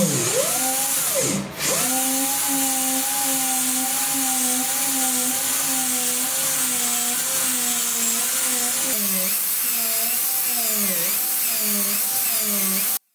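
Slow-speed dental handpiece running a fiber-post drill in a root canal, widening the post space. Its whine dips in pitch in the first couple of seconds and wavers up and down in the last few seconds as the drill is worked in the canal, then cuts off suddenly near the end.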